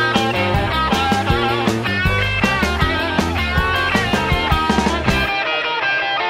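Rock music with guitar, bass and drums. The bass and drums drop out about five seconds in.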